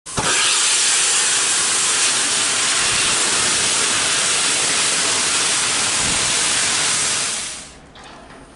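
Steam locomotive blowing off steam: a loud, steady hiss that fades away about seven and a half seconds in.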